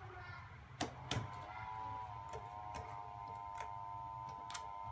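Lilac borax slime being stretched and pressed by hand, giving sharp clicks, the loudest pair about a second in: the clicky sound of a slime that has been worked with borax until it hardly sticks. A steady high tone runs in the background from about a second in.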